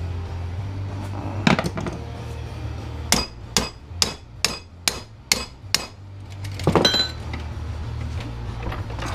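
Hammer striking a doorknob's metal parts: two knocks, then a run of seven sharp blows about two a second with a faint metallic ring, and one longer rattling knock near the end.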